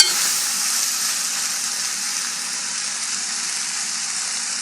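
Sausages and vegetables sizzling steadily as they fry in a pan, with no water added. There is one sharp click right at the start.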